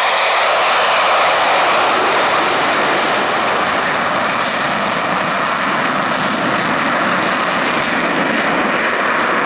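Blue Angels F/A-18 Super Hornet jets climbing out in a formation takeoff, their engines at high power making a loud, steady rush of jet noise.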